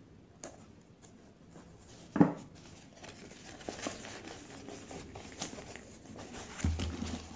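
Scissors snipping through plastic packaging, then thin plastic wrapping rustling and crinkling as it is pulled off a rolled banner. A single sharp knock about two seconds in is the loudest sound, and a low bump comes near the end.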